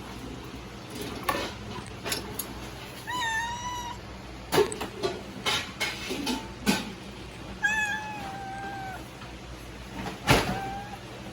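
A domestic cat meowing three times: one call about three seconds in, a longer, slightly falling one later, and a short one near the end. Several sharp knocks fall between the calls, the loudest just before the last meow.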